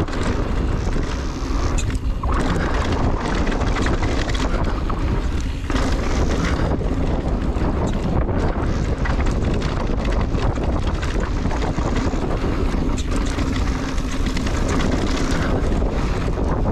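Wind rushing over a mountain biker's camera microphone, with the bike's tyres rolling over a dirt trail and short knocks from bumps.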